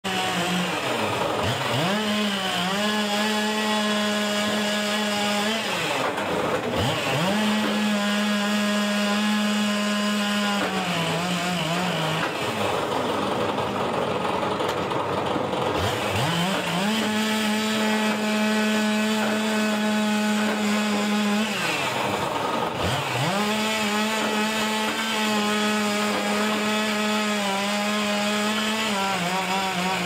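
Log splitter's motor running steadily. Every five to six seconds its pitch sags sharply and climbs back, as the ram drives a log through the wedge and loads the motor down.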